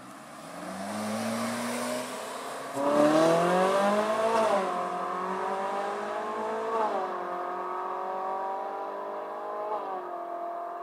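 Supercar engine accelerating hard through the gears, its pitch climbing and dropping back at upshifts about four, seven and ten seconds in. It is loudest from about three seconds.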